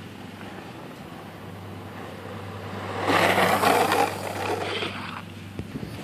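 Skateboard wheels rolling on asphalt, swelling to a loud rush as a skater carves past close by about three seconds in, then fading. A steady low hum runs underneath.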